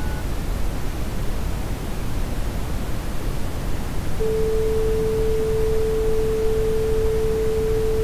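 Steady broadcast static hiss. About four seconds in, a single steady pure tone starts and holds, as for a signal or test tone on a dead channel.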